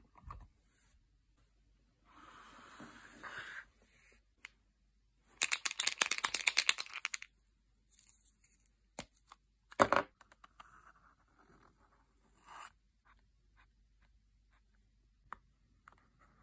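A uni Posca acrylic paint marker being shaken, its mixing ball rattling rapidly for about two seconds. A sharp click follows a few seconds later, and then the soft scratching of the marker tip painting on a phone case.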